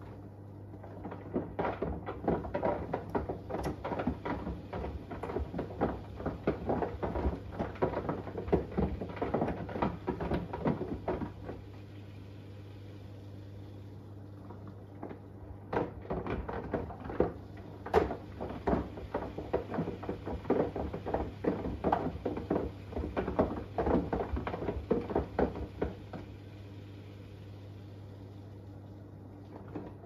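An iPhone 11 clattering and knocking against a tumbling washing machine drum, in two spells of about ten seconds with a few seconds' pause between, the drum stopping and turning again. A steady low hum runs underneath.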